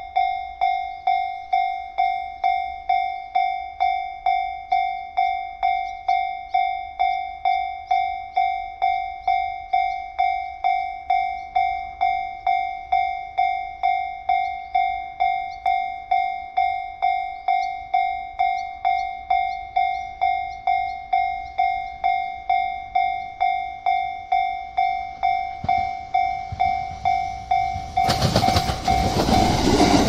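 Japanese railway level-crossing alarm sounding its electronic bell, one clear tone repeated a little under twice a second. Near the end the running noise of an electric train swells, and it passes close by with wheels clattering on the rails.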